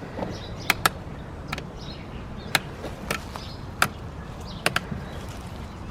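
Sharp clicks, about eight at irregular intervals, from the switches on a child's Power Wheels ride-on toy car being flicked on and off.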